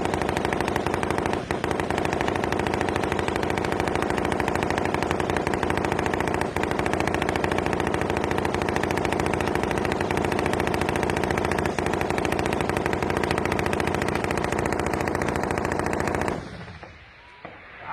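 Dense, sustained automatic gunfire from many weapons firing at once, the heavy exchange of fire of an armed clash, with a few louder bangs standing out. The firing drops away suddenly about sixteen seconds in.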